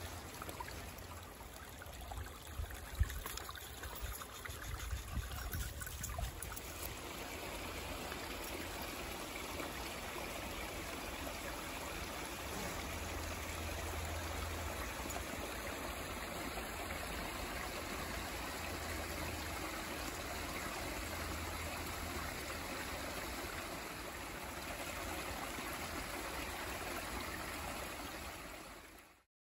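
Small woodland stream running and trickling over rocks in a little cascade, a steady water sound that cuts off suddenly near the end. A few sharp knocks sound in the first several seconds.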